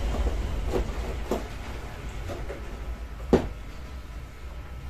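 A few light knocks and taps from handling the TV panel and its frame, the sharpest one a little past three seconds in, over a steady low rumble.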